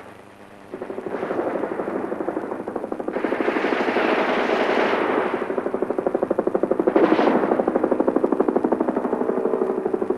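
Machine-gun fire: a fast, even rattle that starts about a second in and keeps going, swelling louder a few times.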